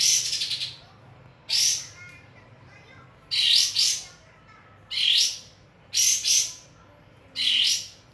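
Kapas tembak bird calling: short, harsh, high-pitched phrases repeated about every one and a half seconds, some given as quick doubles. It is a lure call meant to set other birds of its kind singing.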